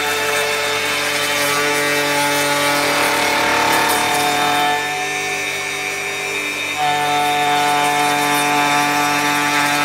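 Electric hand planer running and shaving wood: a steady motor whine over a rushing cutting noise. The level and tone dip about five seconds in and pick up again about two seconds later.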